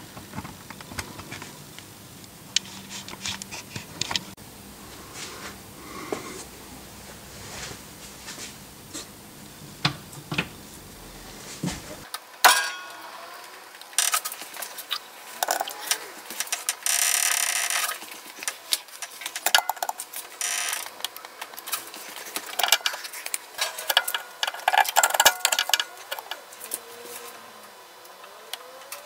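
Irregular clicks, knocks and metallic clinks of hand tools working on a car's rear suspension while a shock absorber is fitted, with a steady noisy stretch of about a second and a half partway through.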